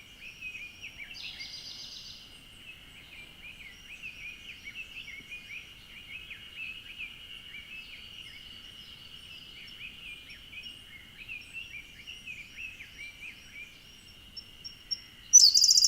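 Siberian blue robin singing: soft, scattered introductory notes, a short trilled phrase about a second in, and a loud rapid trill near the end. A steady high hum runs underneath.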